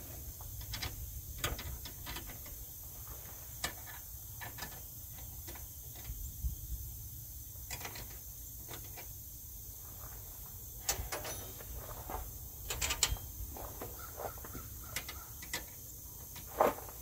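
Wrench work on the truck's cab suspension bolts: scattered, irregular clicks and metal clinks of hand tools, with a few louder knocks about two-thirds of the way through and one sharp knock near the end.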